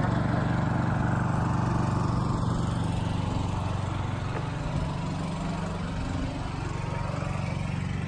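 Honda EU22i inverter generator's small single-cylinder four-stroke engine running steadily just after being started, a constant engine hum that grows gradually fainter.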